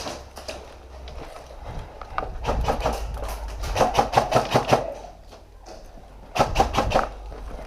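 A quick series of evenly spaced sharp knocks in two runs, a longer one a few seconds in and a short run of about four near the end, over a low rumble.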